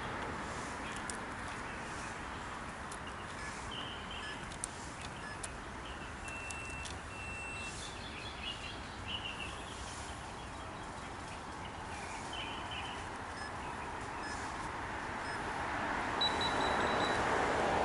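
Outdoor ambience: a steady hum of distant city traffic, with birds chirping on and off through the middle. The hum grows louder near the end.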